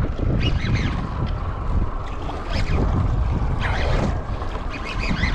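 Wind buffeting the microphone on an open boat at sea, a steady low rumble, with short high squeaky sounds coming and going every second or so.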